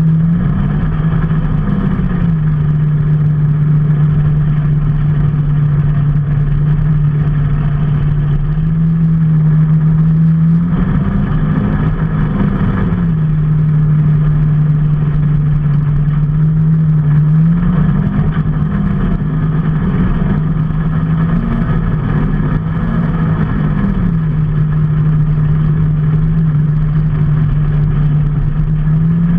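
A motor vehicle's engine running steadily while riding, its pitch stepping up a little and gliding back down several times, over a steady rush of road noise.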